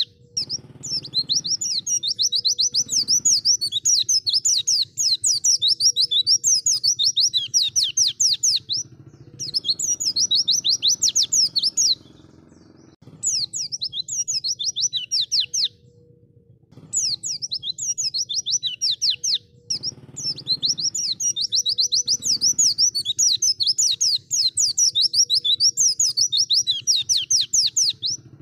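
White-eye (pleci) singing a long, fast chattering song of rapid high notes, in phrases several seconds long with two short pauses about halfway through.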